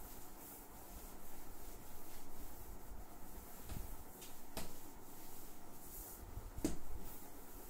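Cloth duster rubbing across a whiteboard, wiping it clean. Two sharp knocks come in the second half, the louder one near the end.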